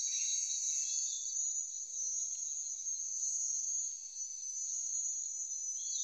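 Steady chorus of insects such as crickets or cicadas: a continuous, high-pitched drone.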